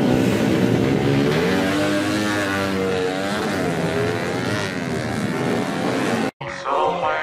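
Underbone racing motorcycles at full throttle in a drag-race launch. The engine pitch climbs and drops back several times as the riders shift up. The sound cuts off abruptly near the end, and music begins.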